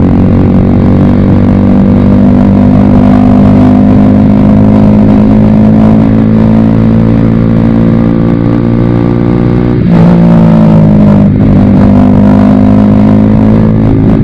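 Bajaj Pulsar RS200's single-cylinder engine running through an aftermarket Akrapovic exhaust while being ridden. Its note climbs slowly, dips sharply about ten seconds in and again a second later, then holds steady.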